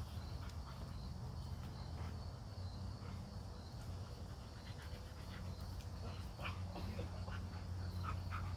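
Insects chirping steadily in a high, pulsing tone over a low steady hum, with a few faint short sounds from two dogs play-wrestling on grass.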